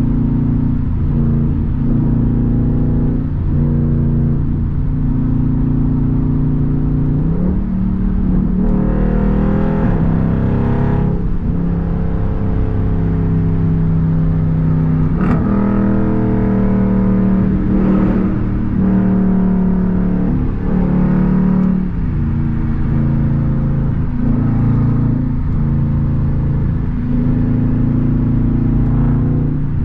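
Straight-piped Jeep Grand Cherokee SRT V8 exhaust droning while cruising on the highway, heard from inside the cabin. The engine note rises and falls several times as the throttle and gears change.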